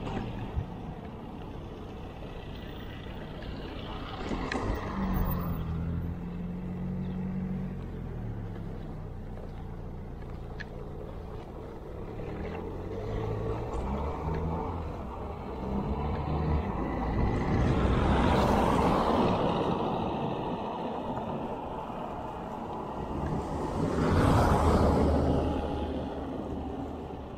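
Wind and road noise from a bicycle on the move, with motor vehicles passing close by: two loud swells that build and fade, the second near the end.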